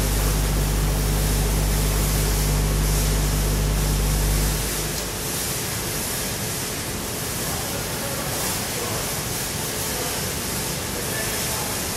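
Optical color sorter for washed PET flakes running: a steady low hum under a broad hiss of air. The hum cuts off abruptly about four and a half seconds in, leaving the steady hiss.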